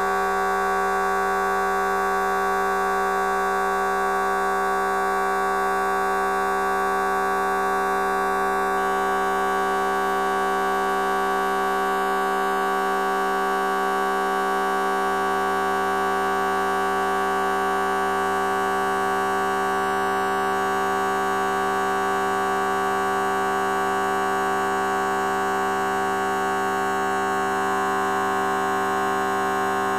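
Fart sound effect time-stretched so far that it has become a steady, unchanging pitched drone made of many tones at once, holding the same loudness throughout.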